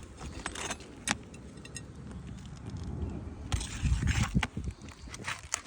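Sharp metallic clicks and scraping from a tool working nails loose from roof shingles, with a low rumble swelling briefly past the middle.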